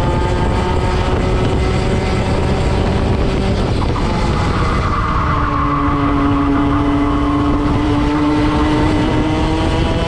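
Racing kart engine at race pace. The revs hold, drop about four seconds in, then build again steadily.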